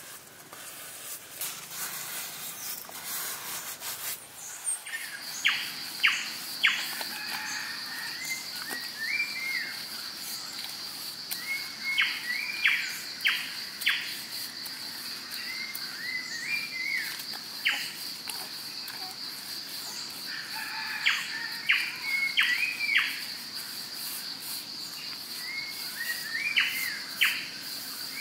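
Forest birds calling in short, repeated bursts of sharp notes and chirps every few seconds, over a steady high insect buzz that starts about five seconds in.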